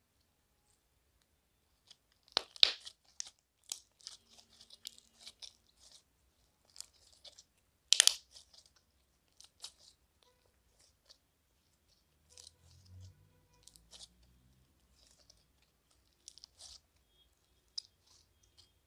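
Purple speckled slime being squeezed and stretched by hand, giving an irregular run of sharp crackles and pops that starts about two seconds in, loudest at about two and a half and eight seconds.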